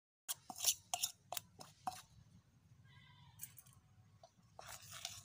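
Steel spoon scraping and clinking against a stainless steel bowl while stirring and scooping dry ground powder: a run of short taps and scrapes in the first two seconds, and more near the end.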